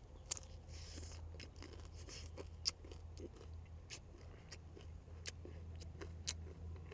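Faint chewing of quail, with scattered small crunches and clicks as the small bones break, over a steady low hum.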